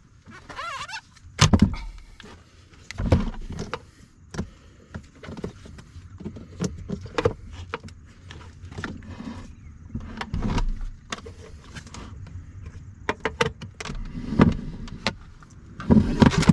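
A heavy car battery being worked into the under-seat battery tray of a VW Touareg: a run of irregular thumps, knocks and plastic clunks as it is shifted and pushed into place, with a brief squeak near the start.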